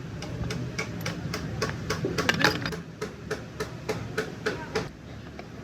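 Hand tools tapping and clinking on metal, a run of sharp strikes about two or three a second.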